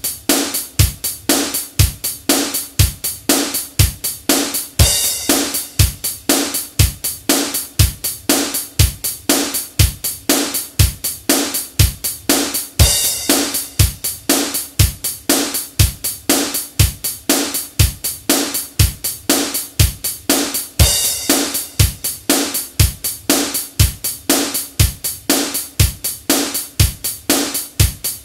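Drum machine beat at 120 beats per minute: kick drum on beats 1 and 3, snare on 2 and 4, and hi-hat on every eighth note. A cymbal crash lands on the first beat of every fourth bar, three times here, eight seconds apart.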